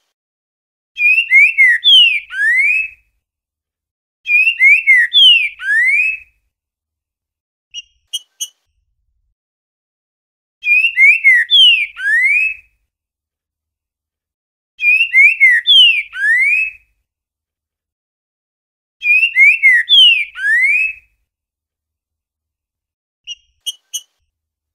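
Green-winged saltator (trinca-ferro) singing the 'boiadeiro' song type: five identical phrases of about two seconds each, every one a quick run of slurred whistled notes that ends on a rising note. Pauses of a few seconds separate the phrases, and short paired high chips fall in two of the gaps.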